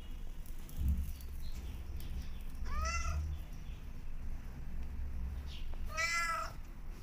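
Domestic cat meowing twice, two short calls about three seconds apart, each rising then falling in pitch, over a low steady rumble.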